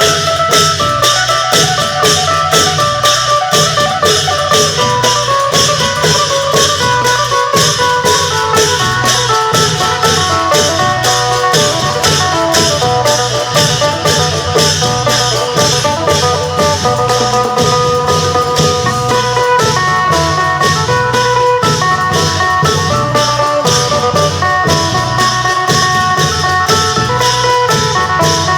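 Isan long-drum (klong yao) ensemble playing, the phin, a plucked Isan lute, carrying the melody over drums and cymbal strokes that keep a steady quick beat of about three to four a second.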